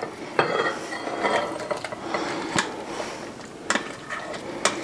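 Utensil scraping a mixing bowl as a cauliflower, cheddar and bacon mixture is poured and scooped into a casserole dish, with a few short sharp knocks of utensil on dish.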